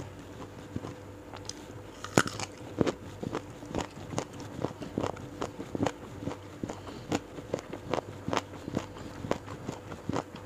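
Close-miked eating sounds: a person chewing crunchy food with the mouth. A loud crunchy bite about two seconds in, then steady crunching chews about twice a second.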